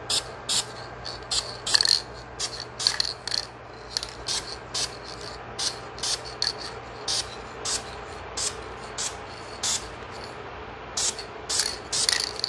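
Aerosol spray paint can giving short, quick hissing bursts, about two a second with brief gaps, laying on light dust coats of ultra flat tan for a camouflage finish. A low steady hum runs underneath.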